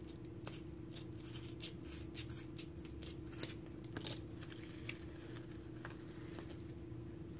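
Scissors snipping through a rhinestone sheet, a run of small crisp clicks and crinkles, with a couple of sharper clicks between three and four seconds in; then the sheet rustling as it is handled. A steady low hum underneath.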